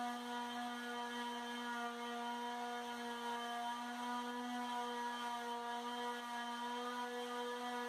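Electric orbital palm sander running steadily with a constant motor hum, its worn 150-grit sandpaper pressed against a dried textured paint coat on a wall to smooth and even it out.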